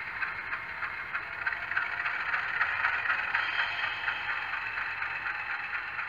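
LokSound Select decoder's GE U25B diesel locomotive sound played through the HO model's small speaker: the engine running with a dense, rattling clatter as the model comes to a stop, easing a little near the end.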